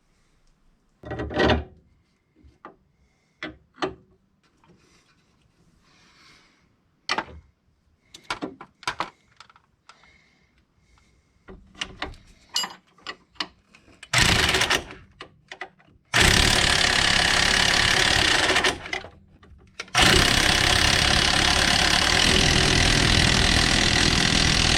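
Scattered clinks and knocks of tools and metal parts, then a power impact wrench run in long bursts of rapid hammering, driving the nuts of a new sway bar end link. The last burst is the longest, about five seconds.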